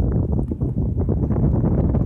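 Strong storm wind buffeting a phone's microphone: a dense low rumble broken by rapid, irregular thumps.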